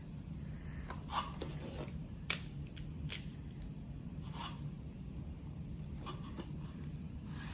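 Toy packaging being handled and opened: scattered scraping and rustling with a few short, light clicks.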